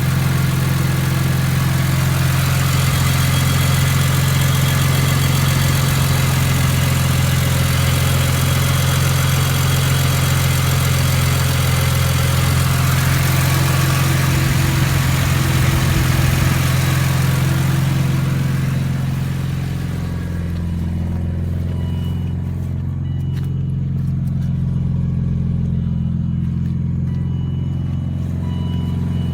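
BMW E46 M3's S54 straight-six engine idling steadily, with a broad hiss over it that fades out about two-thirds of the way through; the owner suspects an exhaust leak at section 1.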